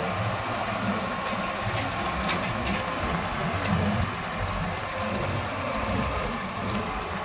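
New Holland 3630 tractor's diesel engine running steadily under load, driving a straw reaper whose machinery runs along with it as an even mechanical rush.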